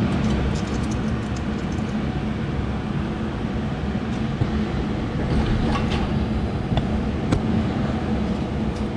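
Steady mechanical running noise with a low hum, broken by a few light clicks.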